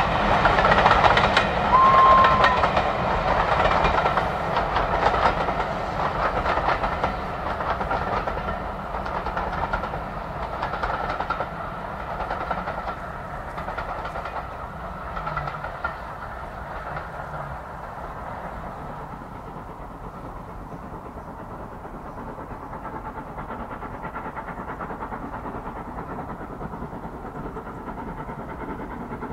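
A steam-hauled passenger train coasting downhill, its coaches rolling by with wheel clickety-clack and fading into the distance. A short high whistle note sounds about two seconds in. The sound settles to a faint steady rumble over the second half.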